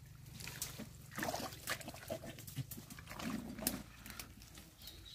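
Hands digging into wet mud at a crab burrow: wet squelching and sucking, with many sharp clicks and crackles.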